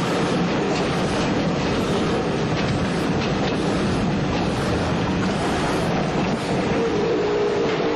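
Schwarzkopf Jet Star II steel roller coaster train running along its track: a steady, loud rumble of wheels on rail with faint clicks, and a short steady hum near the end.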